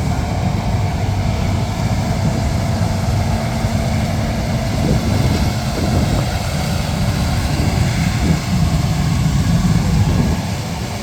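Large diesel harvest machinery, combines and grain-cart tractors, running steadily during corn harvest, with a faint steady tone for the first half.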